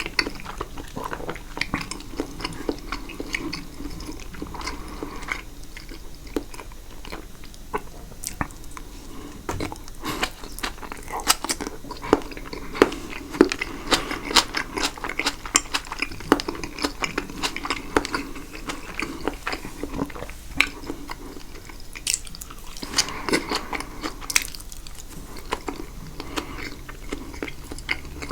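Close-miked ASMR eating: caprese salad of tomato, mozzarella and basil with a thick balsamic dressing chewed with the mouth open, giving irregular wet smacks, squishes and clicks.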